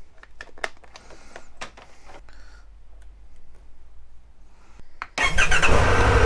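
Faint clicks of a charging cable and phone being handled, then about five seconds in the Triumph Tiger 1200's three-cylinder engine starts and settles into a steady idle.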